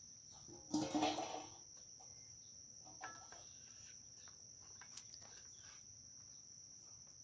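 Crickets chirping steadily in the background, with a brief louder burst of handling noise about a second in and a few light clicks later on.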